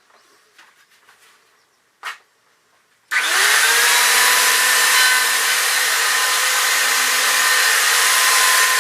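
An electric power tool switches on about three seconds in, its motor spinning up quickly and then running loud and steady. Before it, a few faint small knocks and one short sharp sound.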